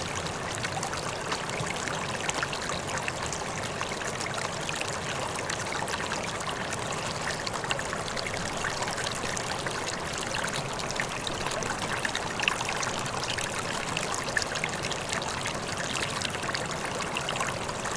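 Mountain stream trickling and babbling steadily, an even rush of water dotted with many small splashes.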